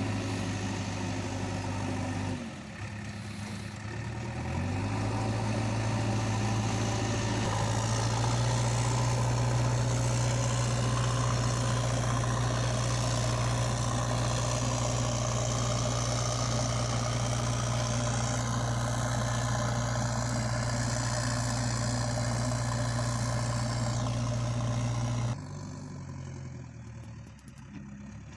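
An engine runs steadily with a low, even hum. It drops away about two and a half seconds in, then comes back with a rising pitch and runs on evenly. Near the end it drops off again and starts to rise once more.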